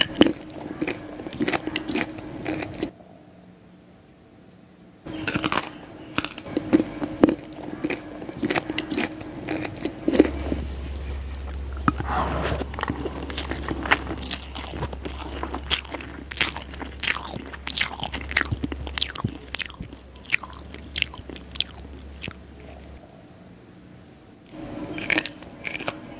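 Close-miked eating sounds: a person chewing, with many crisp crunching and clicking bites, while eating raw wild berries and liver curry with rice. A short quieter pause comes about three seconds in.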